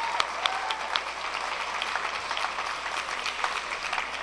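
Audience applauding, a steady run of many handclaps.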